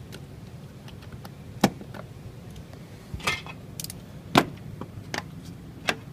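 Scattered sharp clicks and knocks from prying the sash clips off a casement window and handling the sash, the loudest about four and a half seconds in.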